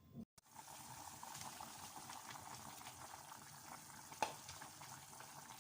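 A pot of chicken tinola soup bubbling at the boil, a faint steady crackling bubble, with one sharp click about four seconds in.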